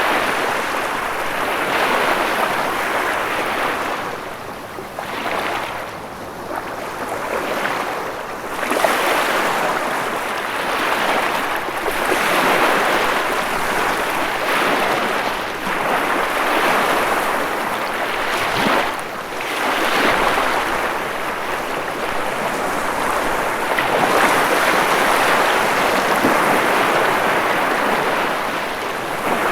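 Ocean surf washing in continuously, swelling and easing every few seconds as waves come in.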